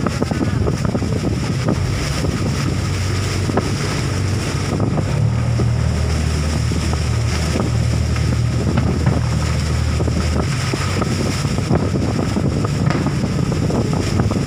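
Boat engine running steadily, with wind buffeting the microphone, and a few faint thumps of distant fireworks.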